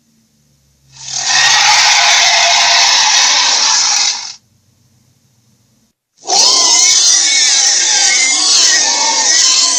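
Creature sound effects: a harsh, noisy hiss that starts about a second in, lasts about three seconds and stops abruptly, then after a short pause a loud cry that wavers up and down in pitch.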